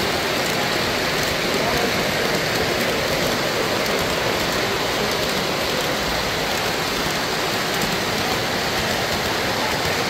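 Three-rail O-gauge model trains running past close by: a steady rolling rumble and hiss of metal wheels on the track.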